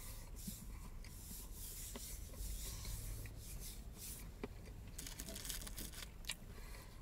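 Faint rubbing of hands against each other, then paper crinkling and rustling near the end as a breakfast sandwich is picked up from its wrapper.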